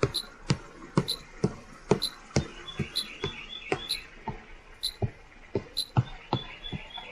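A run of sharp knocks or clicks, about two a second and unevenly spaced, many with a short high squeak on each. A quick series of faint high chirps comes about three seconds in.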